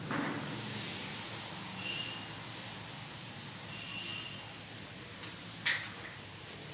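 A cloth duster rubbing over a chalkboard, faint scraping over steady room hiss. There are two brief faint high squeaks, about two and four seconds in, and one sharp tap near the end.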